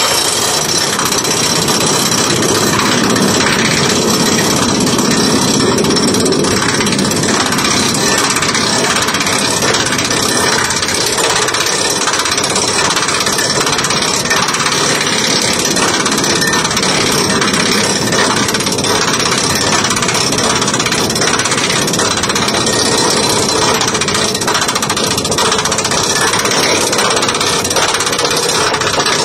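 Roller coaster lift chain clanking steadily as the coaster train is hauled up the lift hill, a loud, fast, even rattle.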